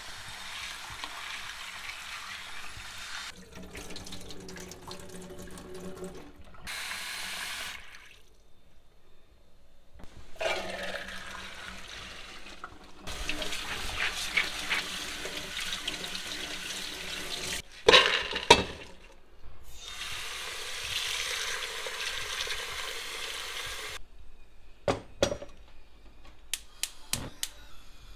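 Kitchen tap water running into a glass bowl of lentils and through a metal mesh sieve as the lentils are rinsed in a stainless-steel sink. The water starts and stops several times, with two sharp knocks midway and a run of clicks and knocks near the end.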